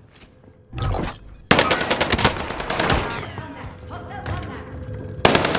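Rapid bursts of automatic gunfire: a quick string of shots starting about a second and a half in and fading over about two seconds, and a second burst near the end.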